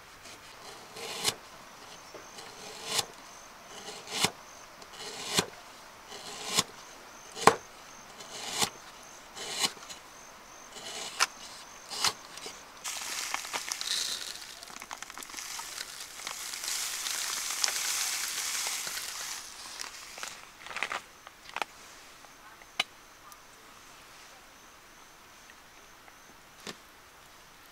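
Blade chopping bamboo in steady strokes, about one strike a second, about a dozen in all. Then a rough hissing scrape for several seconds, followed by a few scattered light knocks.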